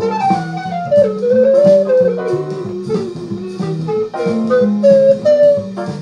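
A recorder playing a jazz melody line in steps, with a falling run about a second in, over a jazz backing of guitar chords and light drums.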